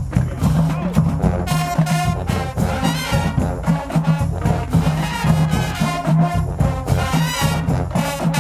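High school marching band playing a brass-heavy tune over drums, with a pulsing low bass line; the upper brass comes in strongly about a second and a half in.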